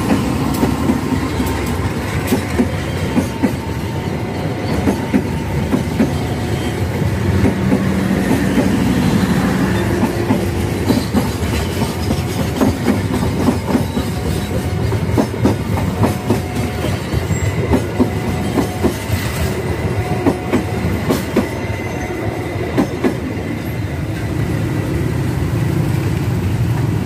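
Passenger train passing close by: a diesel locomotive and then a long string of coaches, the wheels clattering over the rail joints in a dense clickety-clack over a steady rumble.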